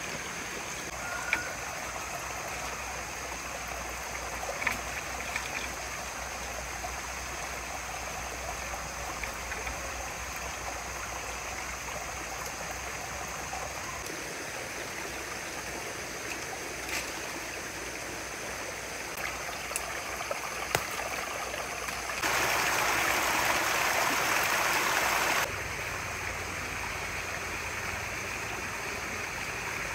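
Steady running water, with scattered small clicks. About three quarters of the way through, a louder rush of water comes in for about three seconds and then stops abruptly.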